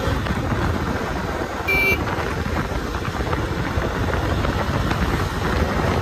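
Bajaj Dominar 250 motorcycle running on the road, its engine under a steady rush of wind. A brief high-pitched beep sounds a little under two seconds in.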